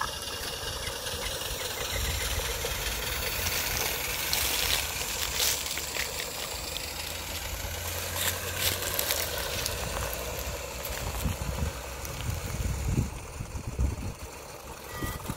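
Live-steam garden-railway model locomotives running with their trains along the track: a steady low rumble with occasional sharp clicks.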